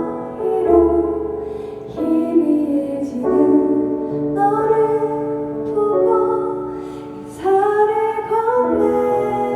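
A woman singing a song, holding long notes over keyboard accompaniment.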